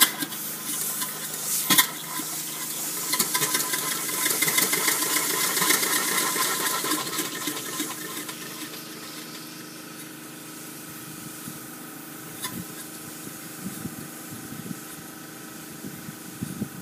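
Antique E.H. Wachs upright steam engine running with a steady hiss from its valves and exhaust, which swells a few seconds in and then eases off. A couple of sharp clicks sound over it.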